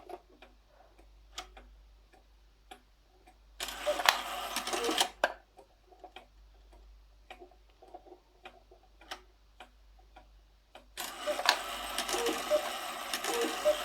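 Antique cuckoo clock ticking, its movement's striking train whirring in a short burst about four seconds in and again from about eleven seconds on as the bellows work the cuckoo.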